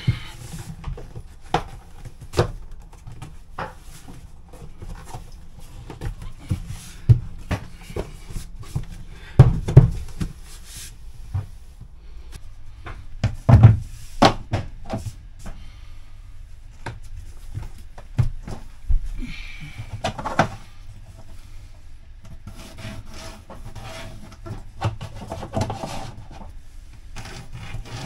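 New floor planks being fitted by hand: a run of knocks, clicks and scraping as planks are slid and pressed into place on the floor, with louder thumps around the middle.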